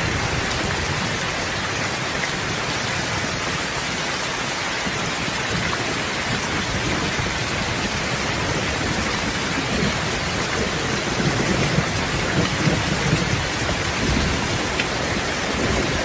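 Steady rain falling with low rolling thunder underneath, the rumble growing louder about two-thirds of the way through.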